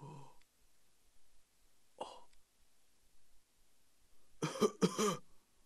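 A person's voice clearing the throat and coughing to get attention: a short throat sound at the start and another about two seconds in, then two louder coughs in quick succession near the end.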